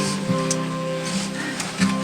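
Background music with a plucked acoustic guitar, held notes sounding steadily.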